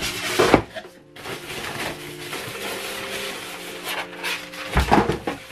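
Plastic packaging wrap rustling and crinkling as it is handled and pulled off a soundbar, with a polystyrene foam end cap being pulled away. Louder, sharper rustles about half a second in and near the end.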